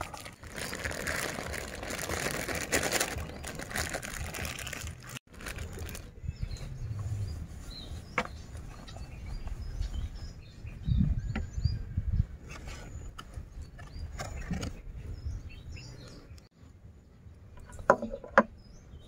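Plastic bag crinkling for the first few seconds as papaya salad is squeezed out of it onto a vegetable platter. After an abrupt cut, scattered light clicks and taps of food being placed, over a low rumble.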